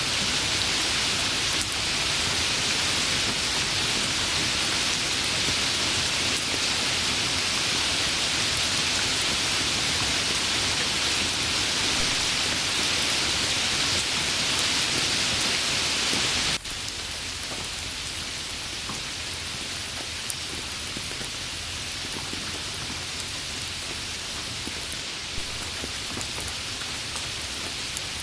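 Steady, heavy rain hiss that abruptly changes, about two-thirds of the way through, to a quieter, lighter rain with a few separate drops.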